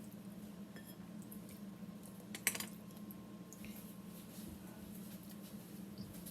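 Faint clicks and clinks of kitchen utensils and dishes being handled, with one louder sharp click about two and a half seconds in, over a steady low hum.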